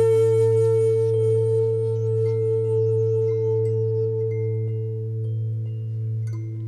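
Tibetan singing bowls ringing in sustained tones over a low drone, the ring slowly fading and wavering. A few faint, short, high bell notes sound from about two seconds in.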